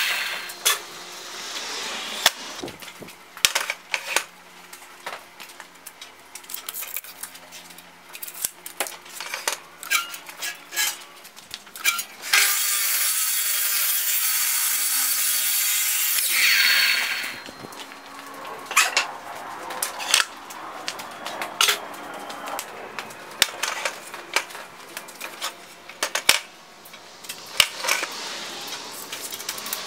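Sliding compound miter saw cutting through a maple board, a steady loud cut of about four seconds starting some twelve seconds in. Before and after it, wooden boards knock and clatter as they are handled and set against the saw fence.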